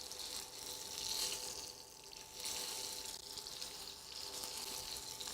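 Chicken breast pieces frying in hot oil in a pan: a steady, fairly quiet sizzle.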